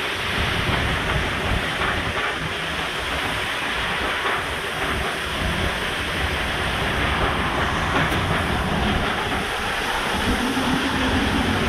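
Hurricane Grace's winds and rain in the storm's core: a loud, steady rush of wind through trees with driving rain, gusts buffeting the microphone.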